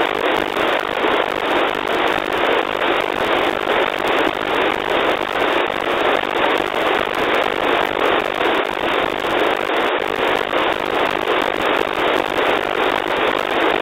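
FM-demodulated radio hiss from an RTL-SDR receiver tuned to NOAA 15's APT downlink on 137.62 MHz. A steady noise with a regular pulsing beat of about two a second is the weak satellite image signal under static.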